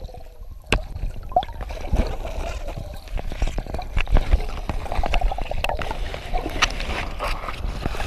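Water gurgling and sloshing around a camera held underwater, with frequent small knocks and clicks over a low rumble.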